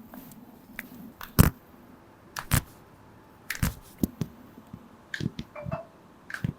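Joints cracking and popping during chiropractic back and neck adjustments: a series of sharp, separate cracks a second or so apart, the loudest about a second and a half in.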